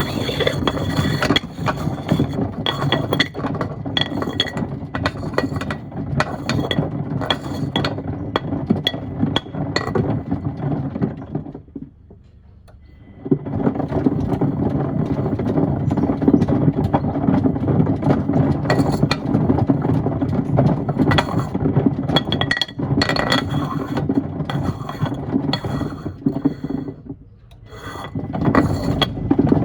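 Stones and pieces of wood tumbling and clattering in the turning drum of a Miele washing machine: a dense, continuous rattle of knocks and clinks. It stops for about a second and a half some twelve seconds in, then starts again, and dips briefly near the end, the pattern of a wash drum pausing and turning again.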